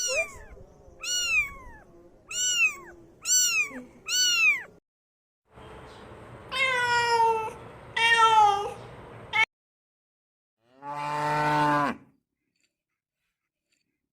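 Domestic cat meowing: five short meows that fall in pitch, then two longer meows. Near the end comes one lower, steady call about a second long, a cow mooing.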